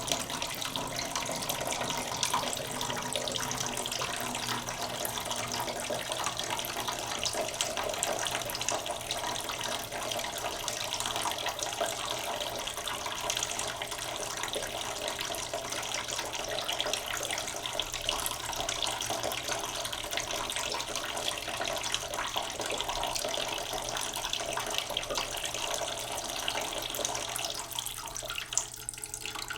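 Kitchen tap running water into a cooking pot in the sink, a steady splashing pour as the pot slowly fills, thinning briefly near the end.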